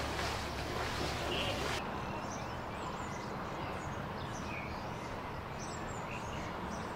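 Rescuers wading through floodwater beside an inflatable rescue boat: splashing water over a low engine hum. After about two seconds this gives way abruptly to a quieter scene of birds chirping over a faint low hum.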